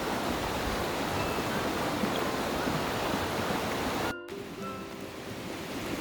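River water rushing steadily. About four seconds in the sound cuts out for an instant and comes back quieter, with a few faint steady tones over the flow.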